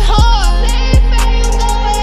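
Hip-hop/R&B song: a deep sustained bass and a kick drum under a sung melody, with hi-hats ticking on top. The bass drops out just after the end.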